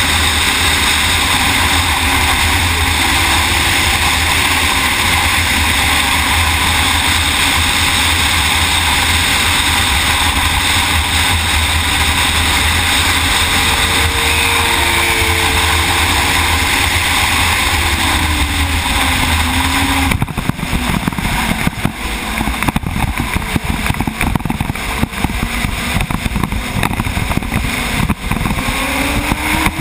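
Onboard sound of a racing motorcycle at speed: heavy wind rush over the bike with the engine running under throttle, its pitch gliding up and down through the gears. About two-thirds of the way through the sound turns choppy and crackly.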